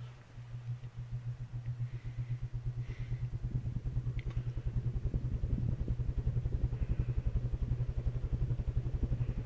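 Hunter Original ceiling fan running, a steady motor hum under a fast rhythmic whoosh from the blades. The whoosh grows louder and quicker over the first five seconds or so as the fan picks up speed, then holds steady.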